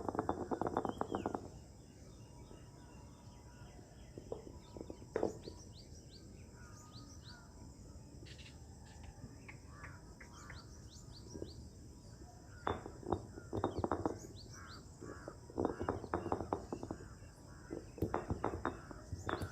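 Birds chirping over a steady high drone. From about two-thirds in come several bursts of quick, repeated knocks, which is green chilli being pounded and crushed by hand.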